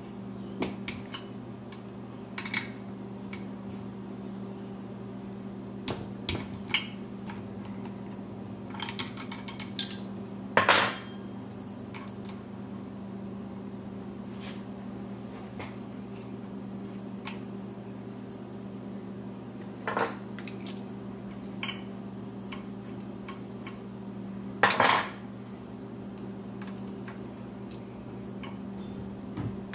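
Metal hand tools clinking and knocking against the parts of a Briggs & Stratton Vanguard V-twin engine: scattered sharp clicks, with two louder clanks about a third of the way in and near the end, over a steady low hum.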